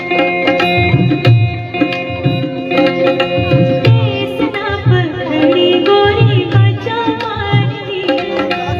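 Live Indian folk music: a hand drum keeping a steady beat under a plucked string accompaniment, with a woman's singing voice coming in about a third of the way through.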